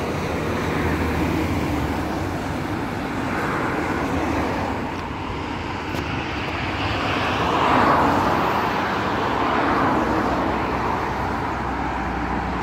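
Road traffic on a multi-lane expressway: a steady rush of tyre and engine noise, swelling as cars pass, loudest about eight seconds in.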